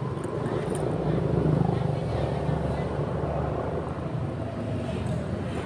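Motorcycle running along the road: a steady low engine and road rumble that swells slightly about a second and a half in.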